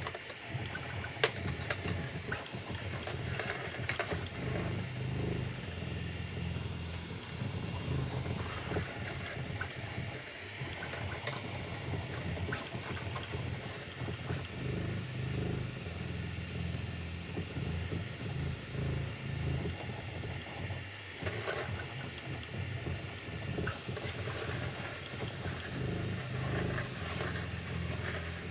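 Bambu Lab A1 Mini 3D printer printing at its fastest speed setting: stepper motors running, with a low tone that keeps shifting in pitch in short steps as the moves change, and small clicks here and there.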